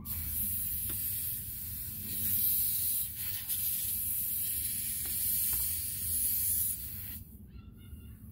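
Air hissing steadily at a car tyre's valve stem as the inflator's hose connector is worked on it, starting suddenly and cutting off sharply about seven seconds in. Short animal calls follow near the end.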